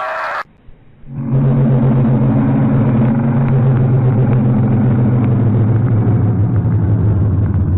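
A loud, low rumbling drone with a steady buzzing pitch, starting abruptly about a second in after a brief gap, in distorted, low-quality audio.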